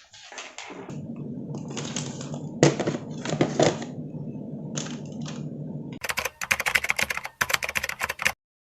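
Clatter and rapid clicking of small hard objects being handled, over a steady low hum, cutting off suddenly near the end.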